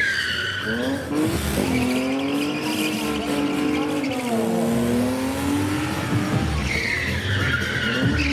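Two BMW E36 sedans drifting: engines revving up and down while the rear tyres squeal, loudest at the start and again from about seven seconds in.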